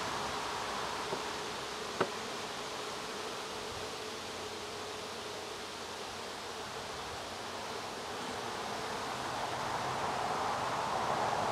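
A colony of Saskatraz honey bees buzzing steadily around an open hive, growing louder near the end. A single sharp click sounds about two seconds in.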